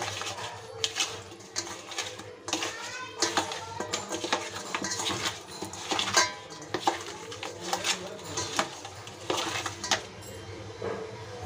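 Raw fish pieces being turned and rubbed by hand in a stainless steel bowl, with repeated irregular clinks and knocks against the metal bowl, some briefly ringing.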